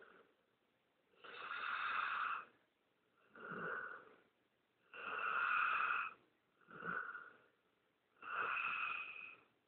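Bull mastiff–shar-pei mix snoring in its sleep. There are three long snores, about a second each, and between them two shorter breaths with a low rumble, in a slow regular rhythm about every three seconds.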